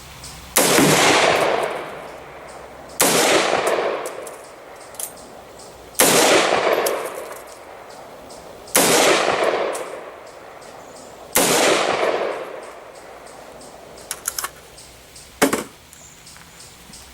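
Five single gunshots from an AR-15 pistol with a short 8.5 inch barrel, spaced about two and a half to three seconds apart, each followed by a long echo that fades over a second or more. After the shots come a few light clicks and one sharper knock.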